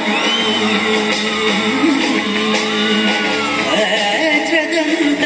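A song with singing, played over loudspeakers for a musical fountain show. Several loud vocal calls rise and fall in pitch over the music.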